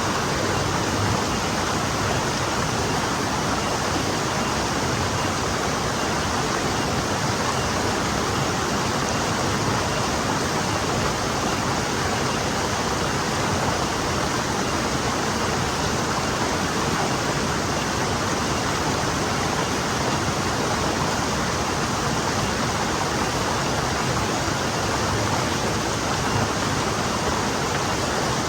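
Forest stream flowing steadily over stones, an even rush of water that doesn't change.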